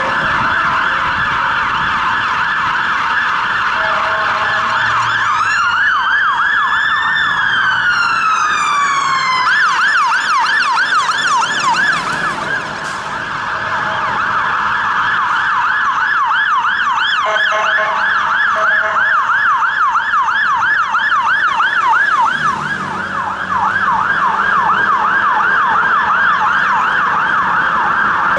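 Fire engine sirens on a fast yelp, several overlapping. A slow wail rises and falls over them for a few seconds near the start.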